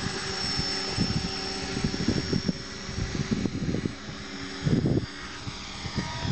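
Hexacopter's six Turnigy Park 450 brushless motors and propellers whining steadily in flight, with irregular low rumbles of wind buffeting the microphone.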